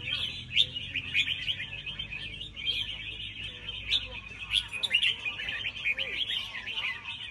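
Caged songbird chirping and twittering continuously, a dense run of short overlapping calls and trills.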